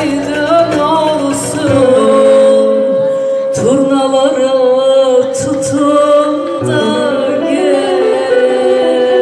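Live Turkish song: a woman's voice singing long, wavering ornamented notes over electronic keyboard accompaniment.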